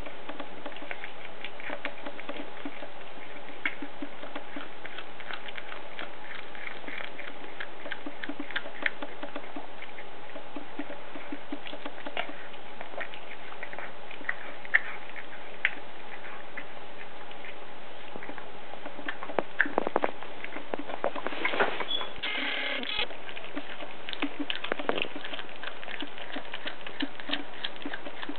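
A cat chewing on a whole raw rat: a run of small, irregular clicks and crunches, thickest about two-thirds of the way through.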